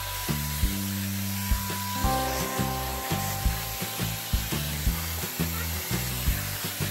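Steady hiss of air from a Shark FlexStyle air styler wrapping hair around its curling barrel, under background music with a steady beat.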